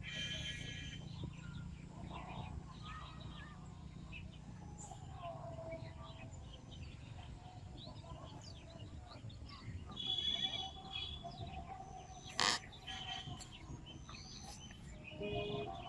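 Birds chirping and calling, with many short chirps and a few longer held calls, over a steady low rumble. A single sharp click stands out about twelve seconds in.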